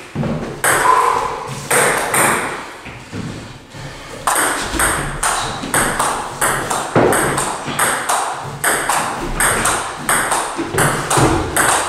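Table tennis ball clicking off the players' bats and bouncing on a Joola table during rallies: sharp clicks about two to three a second, with a lull of about a second and a half around the third second.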